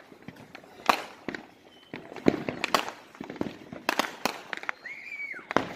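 Fireworks going off: irregular sharp bangs and cracks, about seven in a few seconds, several coming in quick pairs.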